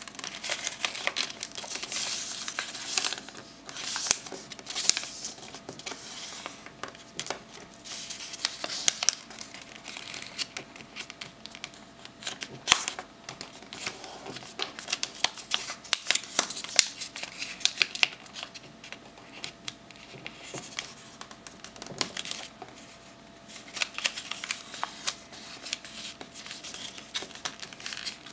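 A sheet of paper being folded and creased by hand: irregular crinkling and rustling, with sharp crackles as the folds are pressed flat.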